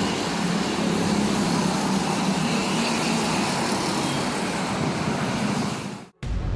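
Steady road traffic noise, vehicles running past, with a low hum under it; it cuts off abruptly near the end.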